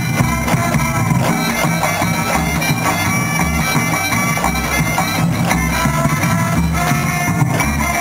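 Campeche folk dance music played loudly for a stage dance: a melody of held notes over a steady, pulsing bass beat.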